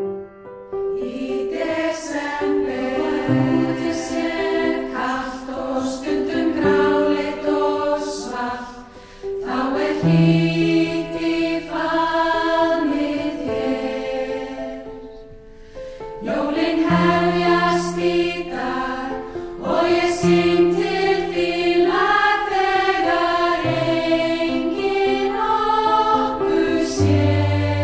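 Women's choir singing a Christmas song in harmony with piano accompaniment, with a short soft passage about halfway through.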